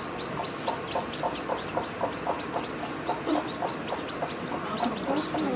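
Chickens calling: a rapid, steady run of high, downward-sliding peeps, typical of chicks, over regular lower clucks, with a deeper hen call about three seconds in and again near the end.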